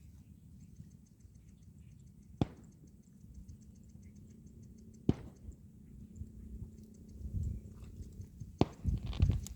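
Three sharp knocks, roughly two and a half to three and a half seconds apart, over a low steady rumble, with heavier low rumbling knocks near the end.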